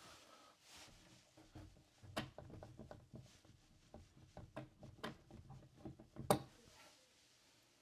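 A run of light, irregular taps and clicks, with one sharper knock near the end, from hands and tools working on metal door hinge pins.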